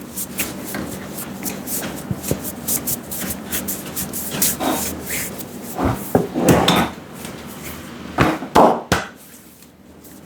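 Hands tapping and rubbing on the head during an Indian head massage (champi): many quick light taps, with a few louder strikes in the second half.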